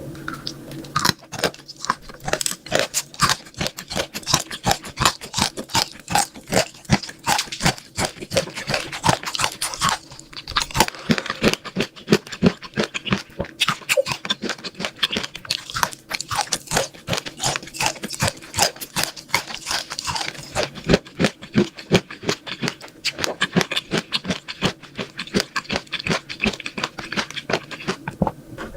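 Close-miked crunching and chewing of a crisp, hard food: dense runs of sharp crackles, many a second, with a few brief pauses.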